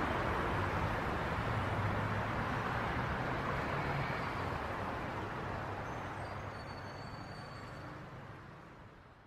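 Steady ambient noise with a low hum, fading out over the last few seconds.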